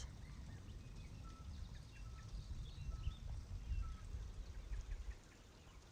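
Faint birds chirping in short, thin high notes, a few each second, over a low steady rumble of breeze.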